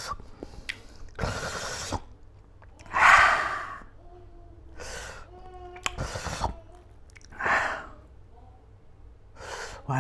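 A man breathing hard in and out through his mouth while eating: about six loud, breathy huffs and gasps, one every second or two, the strongest about three seconds in.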